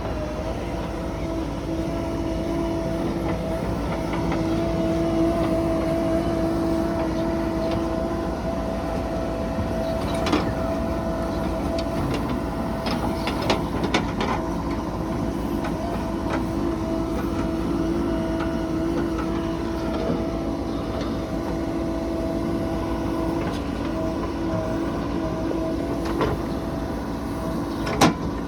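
JCB 3DX backhoe loader's diesel engine running steadily under load, with a steady hydraulic whine over the engine and a few sharp metallic knocks from the working bucket and arm.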